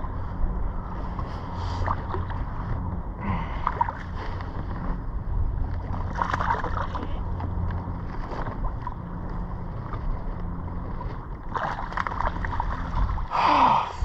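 Wind buffeting the microphone and choppy sea water lapping and sloshing around a kayak, with a few short splashes as a landing net is worked in the water to land a snapper.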